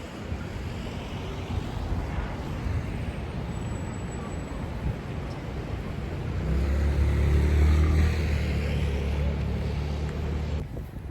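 Road traffic noise, with a vehicle engine running close by from about six seconds in as a steady low hum; the sound cuts off suddenly shortly before the end.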